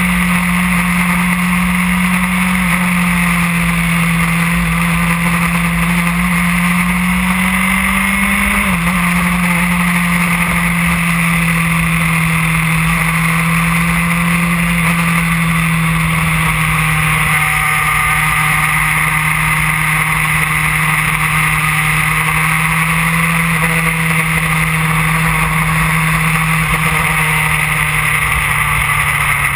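Yamaha R1 sport bike's inline-four engine running at a steady cruise, its note dropping sharply about nine seconds in and then easing slowly lower, over a constant rush of wind.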